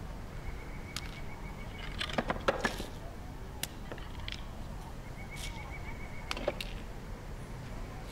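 Roadside outdoor ambience: a steady low rumble with scattered light clicks and knocks, the loudest a short cluster about two seconds in. A thin, high, steady tone sounds twice, once for over a second early on and again for about a second past the middle.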